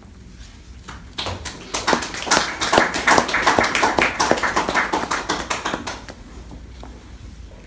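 Small audience clapping, starting about a second in, growing, then dying away after a few seconds.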